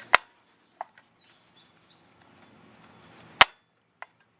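Sharp knocks of parts striking as a rear wheel hub assembly is worked out of its mount: two loud ones about three seconds apart, with two lighter taps.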